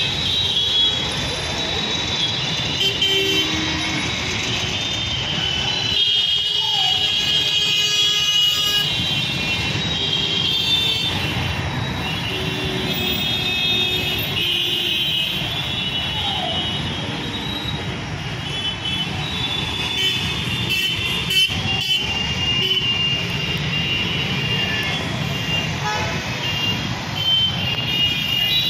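Congested road traffic of motorbikes, scooters and cars: a steady rumble of engines with horns honking almost continuously, many overlapping.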